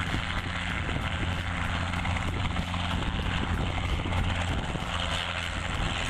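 Small Robinson piston-engined helicopter hovering low: steady rotor and engine noise.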